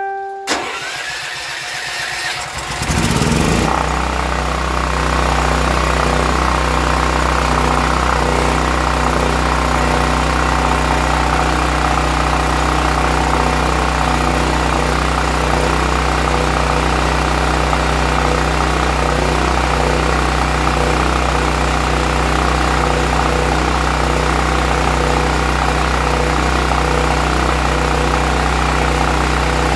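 Westinghouse WGen9500 portable generator's single-cylinder engine cranking for about two and a half seconds, then catching and running at a steady, even speed with no surging. It is on fresh fuel with its idle jet cleaned.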